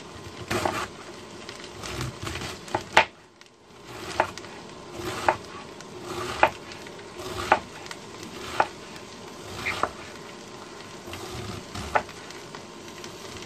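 Chef's knife slicing through a cabbage head and striking a plastic cutting board, a crisp chop roughly once a second, over a steady sizzle from a pot frying on an induction burner.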